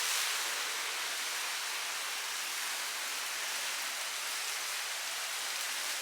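Steady hiss of rain falling in a tropical-storm rain band, with no breaks or separate impacts.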